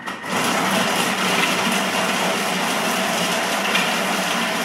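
Thermomix TM6 running at speed 5, its blade chopping cubes of Gruyère cheese into small pieces. A steady, even whir that starts at the very beginning and holds without change.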